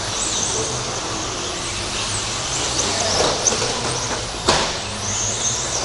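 Electric 1/10 RC stadium trucks with 13.5-turn brushless motors racing: a steady hiss with short high-pitched motor whines sweeping up and down as the trucks accelerate and brake. A sharp knock about four and a half seconds in.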